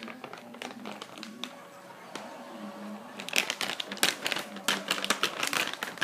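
A puppy's dog booties scuffing and crinkling on carpet as she walks, a few scattered ticks at first, then a dense run of quick crackly scuffs from about three seconds in as a second small dog scampers alongside.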